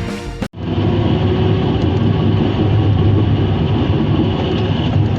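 Music cuts off abruptly about half a second in, then a Cat D6K bulldozer's diesel engine runs steadily with a deep, even hum.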